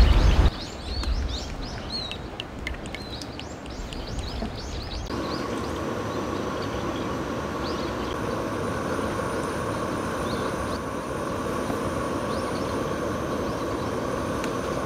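Birds chirping over light outdoor ambience, then, after an abrupt change about five seconds in, a steady mechanical drone with a faint hum.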